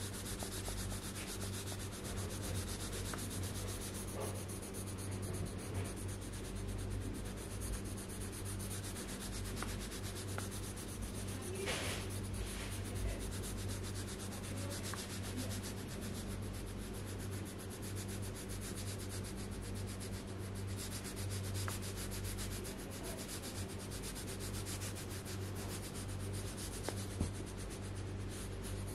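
Colored pencil scratching rapidly back and forth on paper as it shades in an area of a coloring page, in a continuous stream of quick strokes over a steady low hum.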